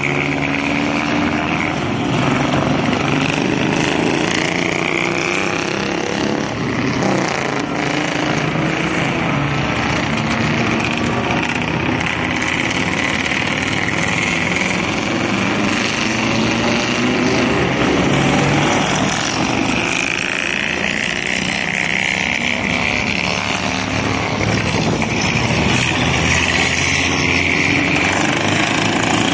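Several vintage pre-war vehicle engines running loudly together, their pitch rising and falling throughout as they rev.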